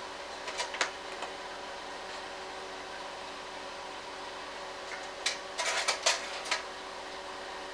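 Slide projector's cooling fan running with a steady hum. About five seconds in comes a quick cluster of clicks and clacks as the projector's slide-change mechanism moves to the next slide.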